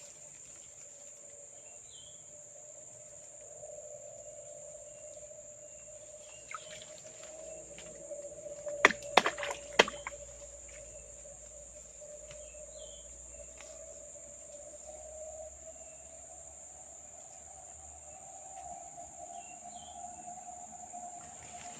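A steady high-pitched chorus of crickets and other insects, with a lower steady drone that slowly rises in pitch and a few short bird chirps. A quick cluster of sharp knocks comes a little before the middle.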